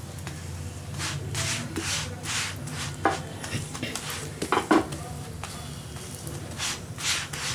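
Wooden spatula pressing and scraping a chapati around a nonstick tawa in repeated short strokes, with a few sharper knocks of the spatula on the pan in the middle, over a steady low hum.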